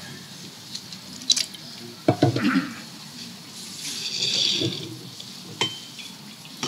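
Small crockery being handled close to a microphone: a few sharp knocks and clinks, loudest in a quick cluster about two seconds in, with a short hiss a little before the middle.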